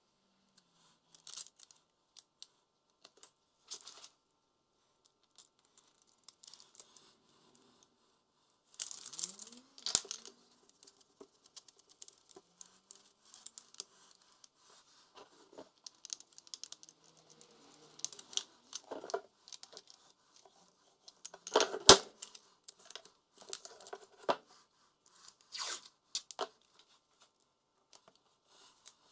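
Workshop hand-work noises in short, separate bursts: tearing and scraping with scattered clicks, a brief rising squeak near a third of the way in, and a sharp knock about two-thirds of the way through, the loudest sound.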